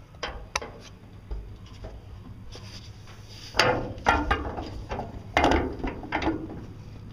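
Handling noises of hood-mounting hardware on a 1956 Ford F-100. A few light clicks come early, then two louder scraping clunks follow, about three and a half and five and a half seconds in, as the hood and hinges are worked into place.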